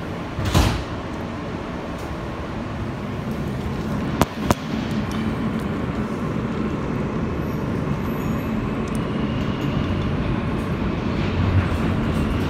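Interior of a Kawasaki R160B subway car with Alstom propulsion pulling out of a station and gathering speed, its running noise growing steadily louder. A heavy thump comes about half a second in, and two sharp clicks follow about four seconds in.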